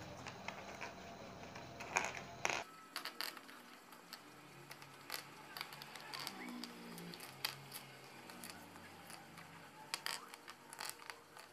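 Small plastic Rubik's cube pieces clicking and tapping against each other and the table as they are handled and sorted. The clicks are scattered and irregular, with a few louder taps about two seconds in and a short cluster near the end.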